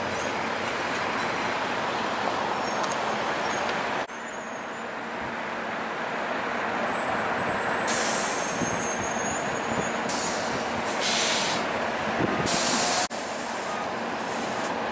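Toronto Flexity Outlook streetcar rolling slowly around a loop track amid steady traffic noise. In the second half there are several loud hisses of released air from the standing buses' air brakes. The sound breaks off abruptly twice, about 4 s and 13 s in.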